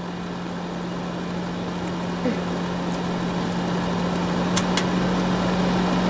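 Comfort Zone personal heater's electric fan running with a steady hum and rushing air, slowly growing louder. A couple of light clicks come about three-quarters of the way through as its control is switched toward fan-only mode.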